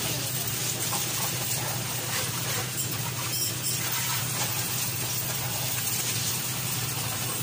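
High-pressure water jet from a coin-operated pressure washer spraying steadily onto a motorcycle and sidecar, a constant hiss of spray with a steady low hum underneath.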